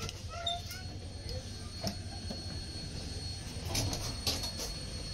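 Steady low rumble with a thin high whine in a railway coach's vestibule, broken by a few sharp knocks, the loudest two a little under a second apart near the end.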